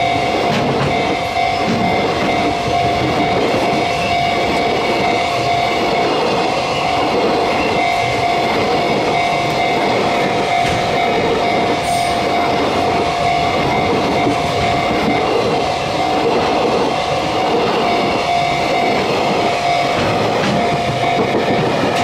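Container wagons of a JR Freight train rolling past close by in a steady, loud rumble, with wheels clattering over the rail joints. A steady high tone rings through it, from the level crossing's warning alarm.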